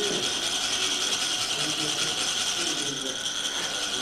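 Continuous rapid rasping of metal chak-pur funnels: a ridged rod is rubbed along the ridged funnel so that it vibrates and lets coloured sand trickle out in a fine line, laying down a sand mandala.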